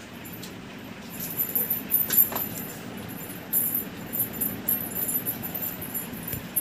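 Small bell on a kitten's collar jingling in irregular bursts as the kittens run and play, over a steady low background noise.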